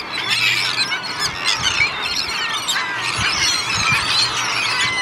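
A huge mixed flock of gulls, mostly herring gulls, with terns among them, calling all at once: a dense, unbroken din of overlapping high squealing cries and squawks as the birds crowd and lift off over the water to feed.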